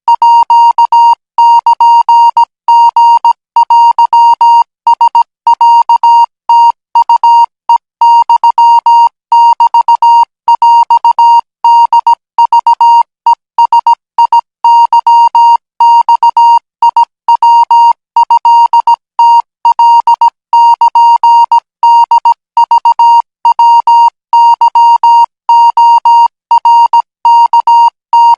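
Morse code practice tone: a single steady beep near 1 kHz keyed on and off in short and long elements (dots and dashes), sending Thai Morse code at 20 words per minute.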